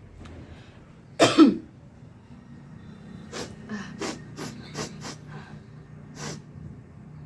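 A person coughing: one loud, harsh cough about a second in, then a run of shorter, softer coughs.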